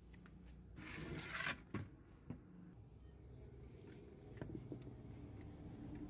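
Screwdriver working the screws out of an old DVD player's rusty sheet-metal chassis: a short scraping rasp about a second in, then a few light metallic clicks.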